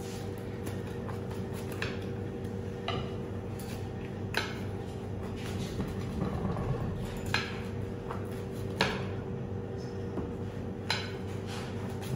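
Pizza wheel cutter rolling through the crust of a pizza, its blade clicking and scraping against the plate underneath: a sharp click every second or two, over a steady hum.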